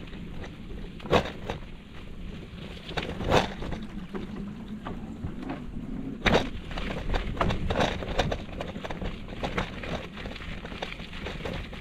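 Bicycle on the move, rattling with irregular clicks and knocks, the strongest about a second in, near the middle and a little past halfway, over a steady low hum.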